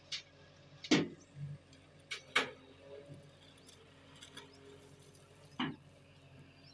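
JCB excavator's diesel engine running with a low steady hum, broken by sharp knocks and clicks: the loudest about a second in, at about two and a half seconds, and again near the end.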